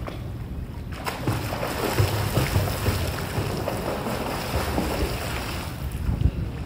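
Pool water splashing and sloshing as a swimmer surfaces and strokes across the pool, beginning about a second in, over a low rumble of wind on the microphone.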